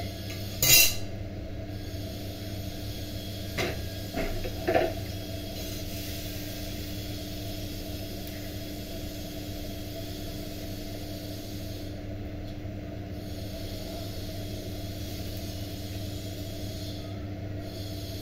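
A steady low hum with a hiss over it, and a sharp knock a little under a second in. A few lighter clacks follow around four to five seconds in, as the dough round is handled and the iron tawa is moved.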